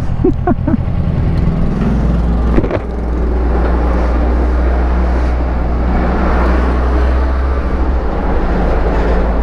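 Kawasaki Versys 650's parallel-twin engine running at low revs while the motorcycle is edged along at walking pace, with a low steady hum and a single click about two and a half seconds in.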